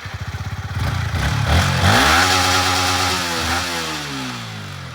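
Motorcycle engine running with a pulsing beat, then revved up sharply about a second and a half in. Its pitch then falls slowly as the sound fades away.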